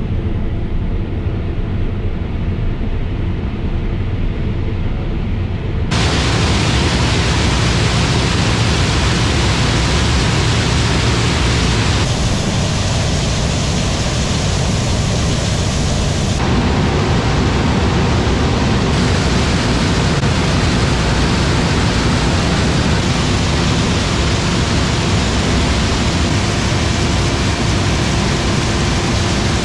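Combine harvester running under load while unloading shelled maize through its auger into a trailer: a loud, steady rush of engine and machinery. About six seconds in the sound jumps from muffled and bass-heavy to a harsher, fuller rush.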